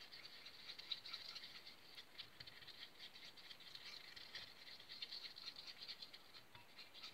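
Spoon stirring wood glue in a ceramic bowl: faint, fast, irregular ticking as the spoon works through the glue and knocks against the bowl.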